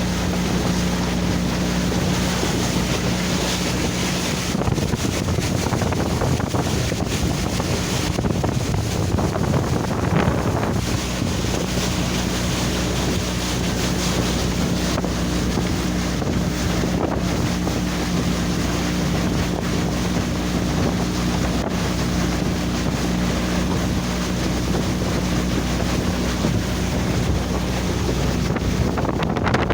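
Small boat motor running at a steady pitch, with wind buffeting the microphone and water noise. The engine tone fades out for several seconds about four seconds in, then returns.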